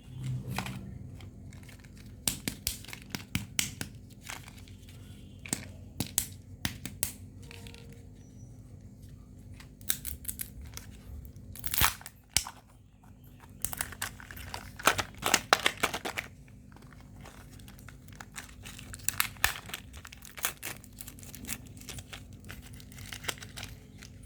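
Plastic and foil candy wrappers on Kinder eggs being torn open and crinkled in short bursts, with a busy spell of crackling about two-thirds of the way through.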